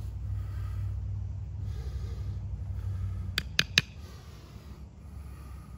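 Three sharp knocks in quick succession, a little past the middle, as wooden bow-drill pieces are handled, over a steady low rumble that fades out as the knocks end.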